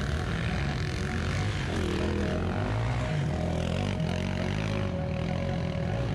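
Off-road motorcycle engines running and revving, their pitch rising and falling.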